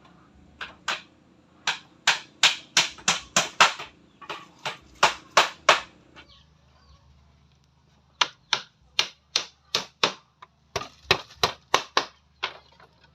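Hammer striking wood in quick, even blows, about three a second, in two runs with a pause of about two seconds between them.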